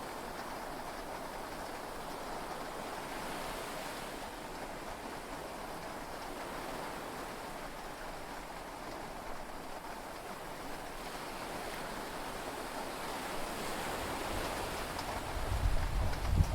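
Steady rushing of heavy rain and sea waves heard from inside a yacht cabin during a storm at sea. Near the end a deep rumble swells in and grows loud.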